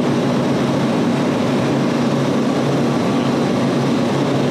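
Refrigeration machinery (compressors and fans) running, a loud steady drone with a low hum that does not change.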